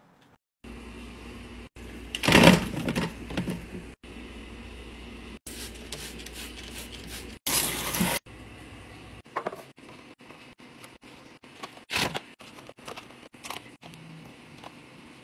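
A string of short cut-together clips of containers and packaging being handled while a fridge is organized: rustling, crinkling and clatter, with a louder rush of noise about two and a half seconds in, another near eight seconds, and a sharp one around twelve seconds, each clip cut off abruptly after a second or two.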